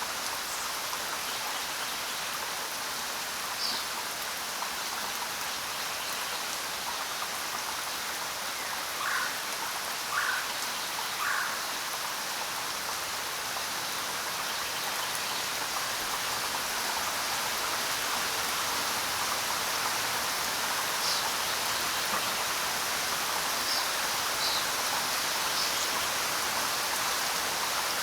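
Steady rain falling on the ground, an even patter of drops. A few short, sharper sounds stand out above it, three of them about a second apart near the middle.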